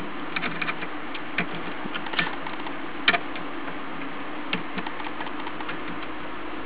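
Small, irregular clicks and taps of scissor blades and a soldering iron against the circuit board as a surface-mount voltage regulator is held down and its pins tacked with solder, over a steady low hum.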